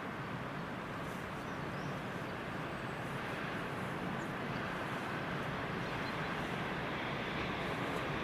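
Freight train hauled by a 2ES10 "Granit" electric locomotive approaching: a steady noise, slowly growing louder.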